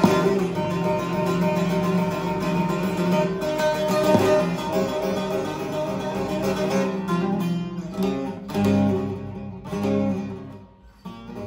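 Divan saz, a long-necked Turkish bağlama with a mahogany bowl and spruce soundboard, being played: a continuous run of plucked notes, with a short pause near the end before the playing resumes.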